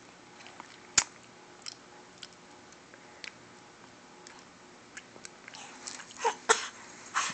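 A baby's mouth noises as she works her tongue: small wet smacks and clicks, one sharper click about a second in, then a few louder puffs of breath near the end.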